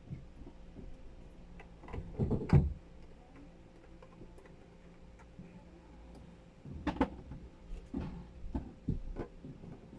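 Dachshund snoring in its sleep: one louder, fluttering snore about two seconds in, then a cluster of shorter snores and breaths from about seven seconds on.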